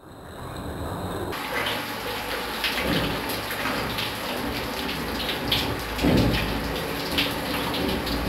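Shower water running steadily and splattering over a person's head and body, with irregular splashes as hands rub water over the face.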